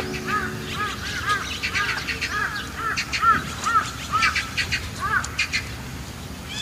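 A run of short, arched chirping calls, several a second, mixed with scattered sharper high-pitched ticks.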